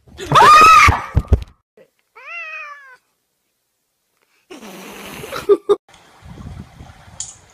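A cat meowing: one loud, drawn-out meow just after the start, then a shorter, softer meow about two seconds in. Later comes a stretch of rustling noise with a couple of sharp clicks.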